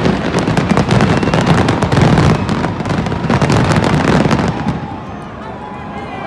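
Fireworks going off in a dense barrage of bangs and crackling, dying away about four and a half seconds in.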